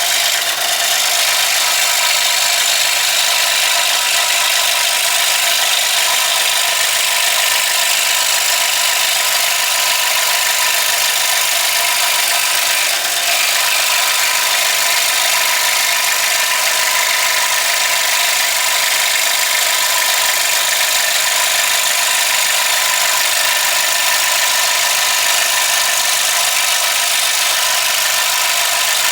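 Power saw running steadily while cutting through thin MDF board.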